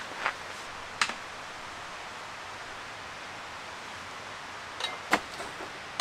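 A few short knocks and taps as things are handled and set down on a camp table, the loudest near the end as a whole watermelon is handled on a wooden cutting board, over a steady background hiss.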